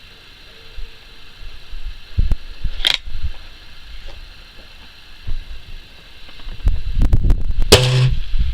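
Swiss Arms TAC-1T .177 air rifle firing once, a sharp crack about three seconds in. Near the end comes a quick run of clicks and a longer rasping mechanical noise, with low thumps of wind and handling on the microphone throughout.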